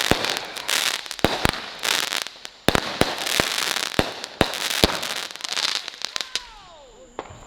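Backyard consumer fireworks going off in a rapid, irregular run of sharp bangs over a crackling fizz. It thins out towards the end, where a faint falling whistle is heard.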